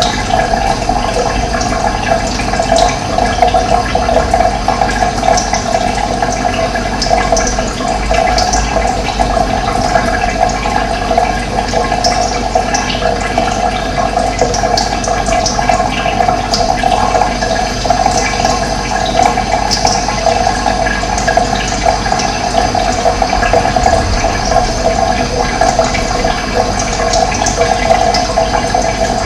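Steady rush of running water, with short high bird chirps now and then.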